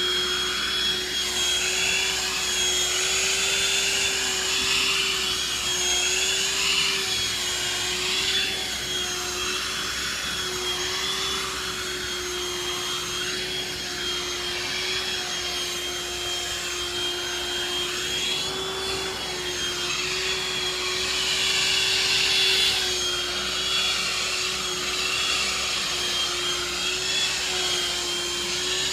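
Vacuum cleaner running without a break, its motor giving a steady whine under the rush of air, which swells and fades now and then.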